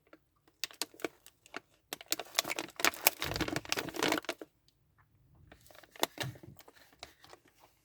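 Cough drop packaging being handled: a run of clicks and crinkles, densest from about two to four and a half seconds in, with another short burst about six seconds in.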